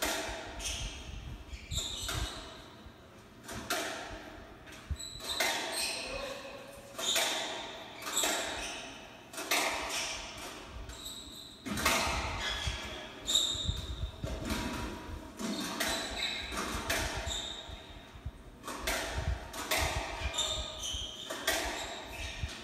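A doubles squash rally: the ball struck by rackets and smacking off the walls about once every second or so, with court shoes squeaking on the wooden floor, heard through a television's speaker.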